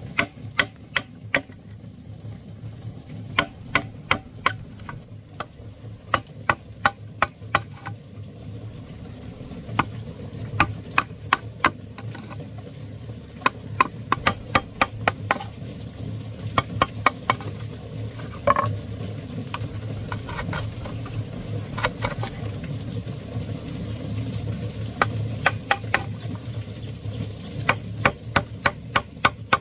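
Kitchen utensils knocking in quick runs of sharp clicks, several a second with short pauses between runs, over a steady low hum, as food is prepared for cooking.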